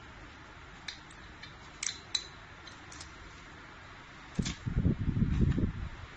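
Light metallic clicks from a chrome faucet fitting being handled, a few times in the first half. About four and a half seconds in come a couple of seconds of low rumbling knocks and rubbing, the loudest sound: the fitting and its wrapping being handled close to the microphone.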